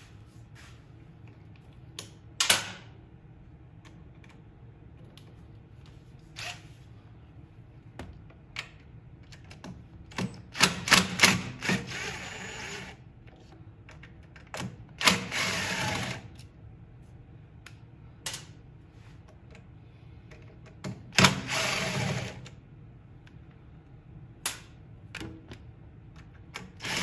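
DeWalt 18-volt cordless driver running in several short bursts of one to two seconds, backing out the Phillips screws on a snowblower's electric-starter cover. Sharp clicks and taps come between the bursts.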